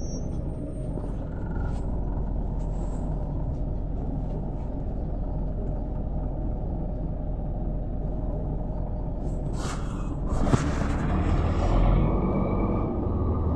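Inside a Mercedes-Benz O405 city bus, a steady low engine rumble, with a short, sharp hiss and a click about ten seconds in that is typical of the bus's compressed-air system venting.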